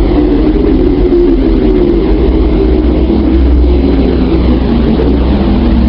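Sonified space recording presented as the sound of Earth: electromagnetic vibrations converted into audio. It is a steady, loud, dense rumbling drone, with a wavering hum in the lower middle over a deep bass rumble.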